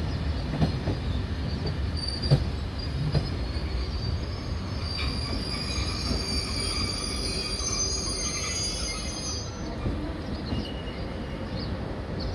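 TGV inOui high-speed train rolling slowly past along the platform, with a steady low rumble and a few knocks in the first few seconds. A high-pitched metallic squeal comes in about five seconds in and fades out a little before ten seconds.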